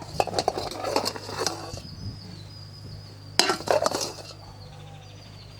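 Hard kitchenware clinking and clattering in two bursts, the first lasting about a second and a half, the second shorter, starting just past the middle. A steady low hum runs underneath.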